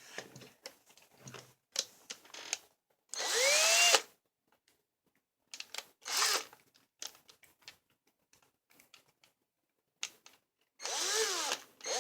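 Small power drill run in several short bursts, spinning up and down, drilling into the base of a 1:64 diecast truck; the longest bursts come about three seconds in and near the end.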